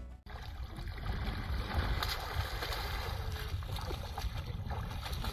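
Water splashing and lapping, with wind rumbling on the microphone.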